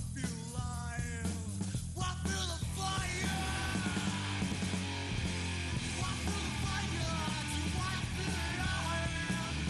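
Rock music with a singing, shouting vocal over a full band; the band gets denser and fuller about three seconds in.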